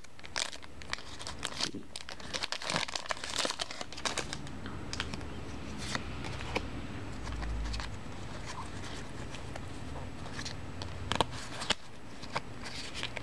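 Foil trading-card booster pack wrapper crinkling as it is torn open and the cards are pulled out, densest in the first few seconds. This gives way to softer rustling of the cards being handled, with a couple of sharp clicks near the end.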